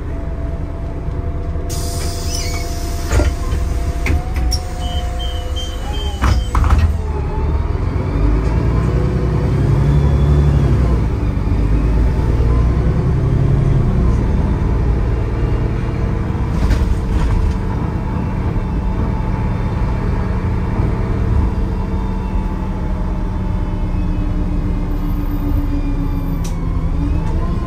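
Solaris Urbino II 12 city bus with a Voith automatic gearbox. Near the start there is a hiss of compressed air with several clicks and a short run of beeps. Then the bus pulls away: the engine rises with the gearbox whining through its gears and settles into steady running.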